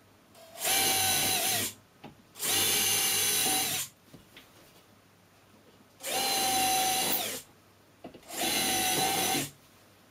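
Cordless drill boring pilot holes into a wooden door jamb so the jamb won't crack when the 3-inch wood screws go in. The drill runs in four short, steady bursts of a second or so each, with pauses between them.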